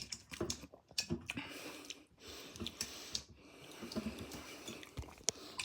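Fingernails clicking and scraping at the pull tab of an aluminium can, trying to lift the tab: faint, scattered small clicks and taps, with a couple of sharper clicks near the end.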